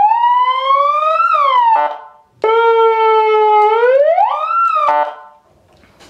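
Electronic 7-tone siren playing through its 30-watt horn speaker: a tone sweeps up, dips briefly and cuts off about two seconds in. A second tone then holds low, rises steeply and stops near the end.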